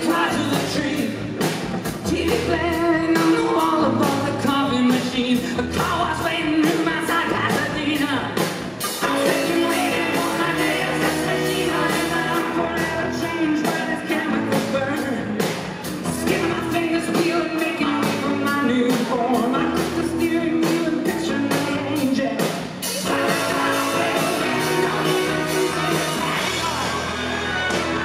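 Live rock band playing: a man singing lead over electric guitars and a drum kit, heard through the festival PA from the crowd.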